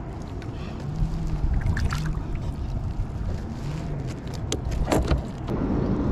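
Wind rumbling on the microphone and water noise around a fishing kayak, broken by several short, sharp sounds, the loudest about four and a half and five seconds in. A small striped bass is being brought in on the line.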